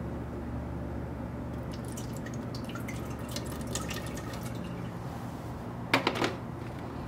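A steady low hum with scattered light water drips, then a short clatter about six seconds in as a plastic tray of potted plants is set down on a cabinet shelf.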